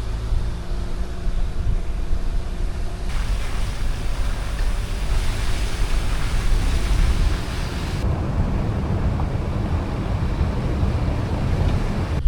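Wind rushing over the microphone with low road rumble from a moving car, a steady rushing noise that changes character abruptly twice, about three and eight seconds in.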